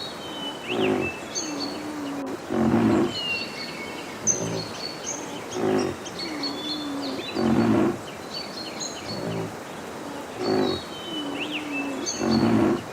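Rhinoceros calling: loud, low, deep calls repeated every second or two, some with a drawn-out wavering moan. Birds chirp faintly in the background.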